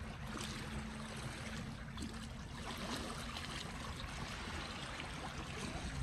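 Small sea waves lapping and splashing against shoreline rocks, over a low rumble. A faint steady hum sounds for the first couple of seconds.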